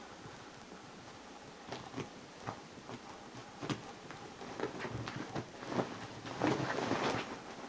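Cats scuffling in a fight: scattered thuds and scrabbles of paws and bodies, getting busier in the second half, with a louder stretch of tussling near the end.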